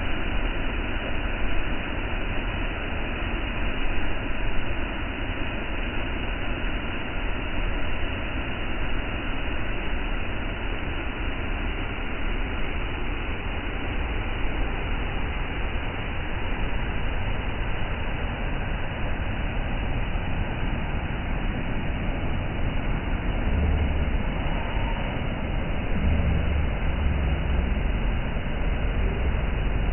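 Waterfall: a steady rush of falling water, with a strong low rumble that swells a few times near the end.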